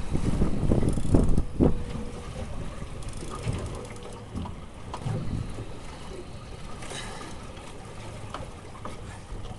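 Wind buffeting the microphone and sea noise aboard a small fishing boat, gusting loudest in the first two seconds, then easing to a steadier low rush.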